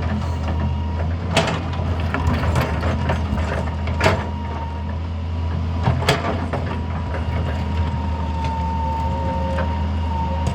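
Hitachi EX200 crawler excavator working: its diesel engine running steadily under a high whine, with sharp metallic clanks about one and a half, four and six seconds in.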